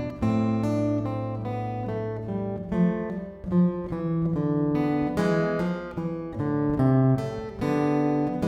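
Acoustic guitar playing a slow instrumental passage, plucked and strummed chords changing about every half second.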